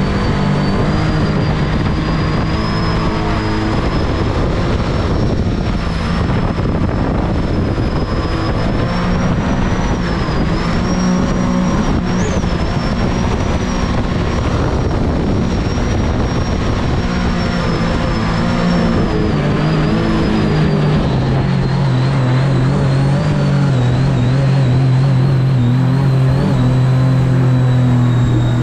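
Supercharged mini jet boat engine running steadily at speed, with a steady rushing noise and a thin high whine above it. The engine note settles a little lower about three quarters of the way through.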